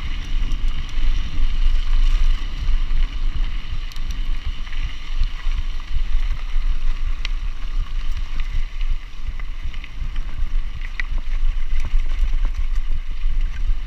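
Mountain bike riding on a gravel track, with its tyres crunching and the frame rattling, under heavy wind rumble on the camera microphone. A few sharp clicks are scattered through.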